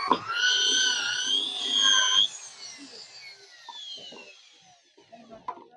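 Electric hand drill drilling out the rivets of a motorcycle clutch housing: a sharp knock as the bit bites, a whine under load, then the trigger released about two seconds in and the drill spinning down with a falling tone. A few light clicks near the end.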